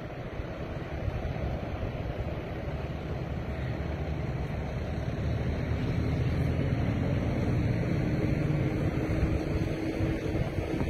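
Wind buffeting the microphone over the steady hum of a passing jet airliner's engines, which grow louder from about halfway through.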